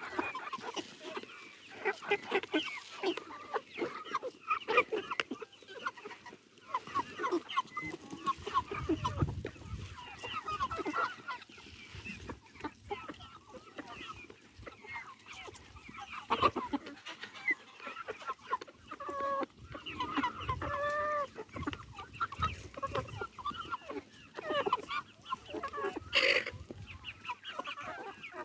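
A backyard flock of chickens clucking and calling, many short, overlapping calls with no steady rhythm. There is one sharp knock near the end.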